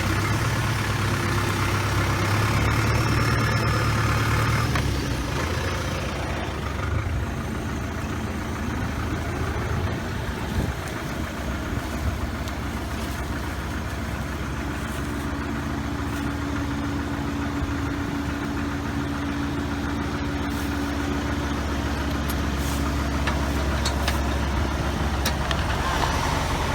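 Farm tractor engine running steadily during ear-corn picking, its note changing about five seconds in.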